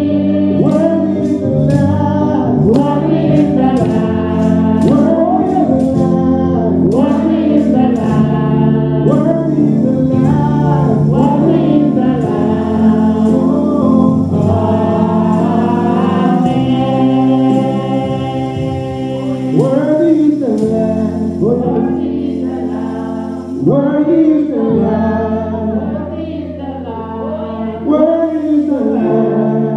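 Gospel worship song: several women's voices and a man's voice singing with vibrato over held electronic keyboard chords, amplified through a PA.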